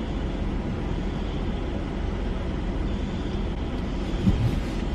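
Steady low rumble of vehicle and outdoor noise, with a school fire alarm faint and distant behind it. A couple of brief low bumps come near the end.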